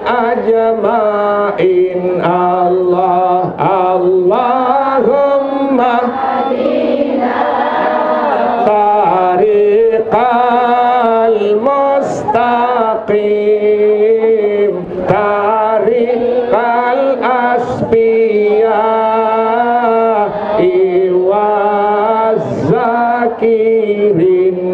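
A man chanting an Islamic prayer in Arabic, a sholawat on the Prophet, into a microphone. The voice is amplified and sung in long, slowly bending melodic phrases with no pause.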